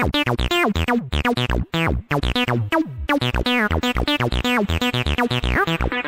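Arturia ACID V, a TB-303-style software bass synthesizer, playing a fast sequenced acid pattern: a run of short notes, each with a filter sweep that falls quickly from bright to dull, with a few brief gaps between phrases.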